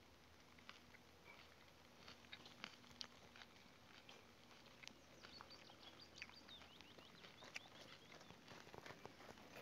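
Faint light rain: scattered soft ticks and drips of raindrops falling on shallow water, with a few faint high chirps about five to seven seconds in.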